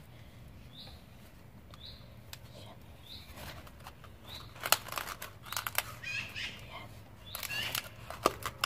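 Gloved hands pressing soil down around a seedling in a cut plastic bottle, giving clusters of crinkling and rustling clicks about halfway through and again near the end. A small bird chirps about once a second in the background, mostly in the first half.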